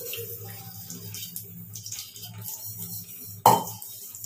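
Stainless steel dishes clinking as they are hand-washed at a steel sink, with one sharp ringing clang about three and a half seconds in.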